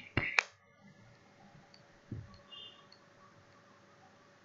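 Two sharp clicks close together near the start, then quiet room tone with a soft knock about two seconds in.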